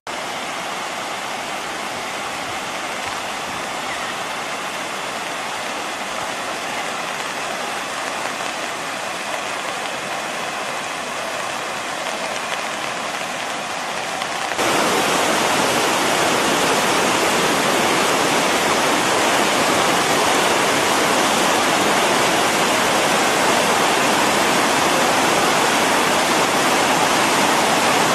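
Steady rush of floodwater pouring over a lake's overflow spillway, the full lake spilling over. The rush gets louder about halfway through.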